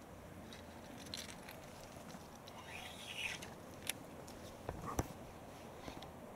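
Faint handling sounds of a baitcasting rod and reel: scattered clicks and short rustles, with a sharper click about five seconds in.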